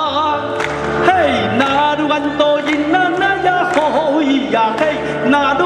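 A choir singing a lively folk song with dance accompaniment, the sung melody over a steady, evenly repeating low beat.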